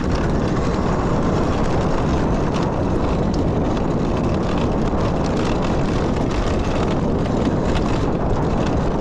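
Steady rush of wind buffeting the microphone, with rolling noise, while riding a Talaria Sting electric dirt bike.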